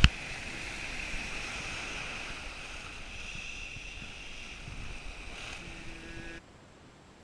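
Sea surf washing and foaming close to the microphone, a steady hiss of breaking water that cuts off suddenly about six seconds in, leaving only faint hiss. A sharp click at the very start.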